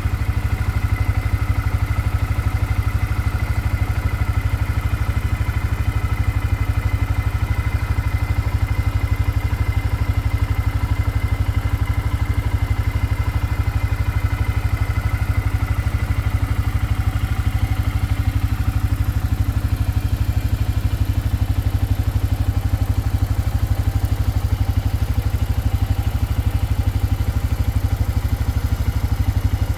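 Four-wheeler (ATV) engine running steadily. A faint high whine fades out about two-thirds of the way through.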